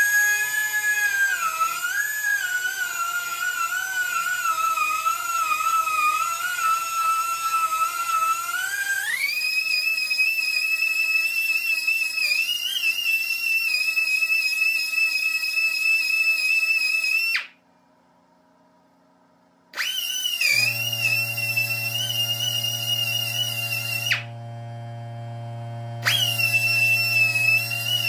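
Pneumatic die grinder whining as it ports a small engine's intake port. The pitch is lower and wavers while the bit cuts, then jumps higher and steadier about nine seconds in. It stops for about two seconds a little past halfway, restarts, and cuts out again briefly near the end; from about twenty seconds in, a steady low hum runs beneath it.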